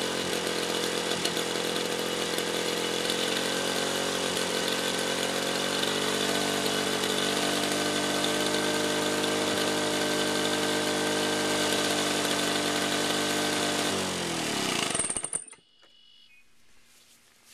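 Lawn-Boy DuraForce 6.5 HP two-stroke mower engine running steadily at speed, then shut off about fourteen seconds in, its pitch falling as it coasts down and stops.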